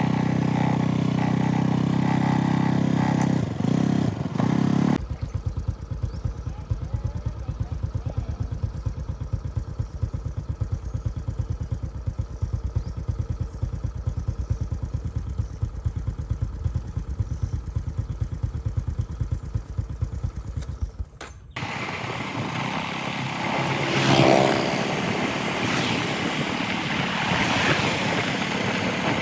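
Motorcycle engine running during a ride, with the sound changing abruptly about five seconds in and again about twenty-one seconds in: a steady drone, then a rapid low pulsing, then a rougher, noisier run.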